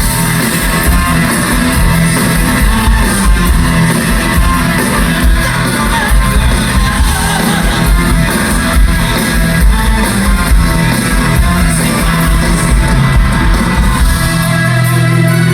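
Live rock band playing loudly, with distorted electric guitars, bass and drums, and singing or shouting over them.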